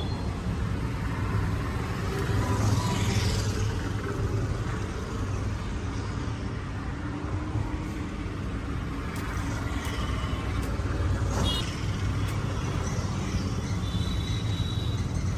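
Steady rumble of street traffic, with a few short clicks about two-thirds of the way in.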